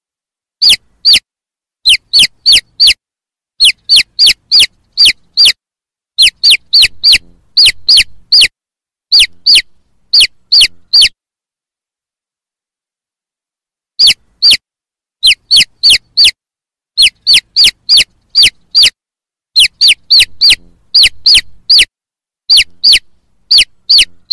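Young chicks peeping: loud, shrill, short peeps that each slide down in pitch, coming in quick runs with short pauses and a quiet stretch of about three seconds midway.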